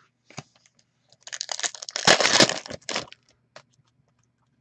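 Trading cards and their plastic packaging being handled: a stretch of crackling and rustling of nearly two seconds, starting about a second in, with a few scattered clicks around it.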